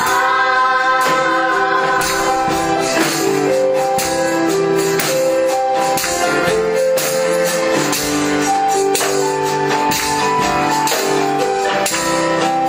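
Music: a melody of held notes over a tambourine keeping a steady beat.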